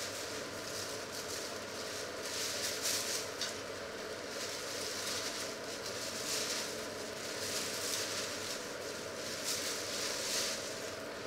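Thin plastic bag crinkling and rustling in several bursts as hands dig into it, over a faint steady hum.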